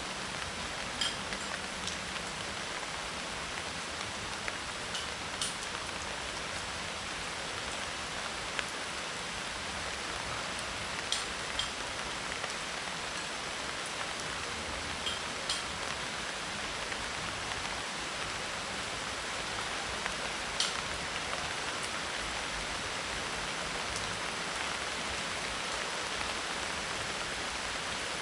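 Steady medium tropical rain falling on a roof of dried leaves, with a few louder single drops ticking here and there.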